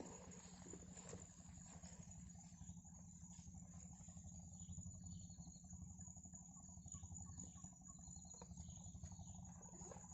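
Faint, steady, high-pitched chorus of insects in the surrounding vegetation, with a low rumble underneath and a few faint chirps.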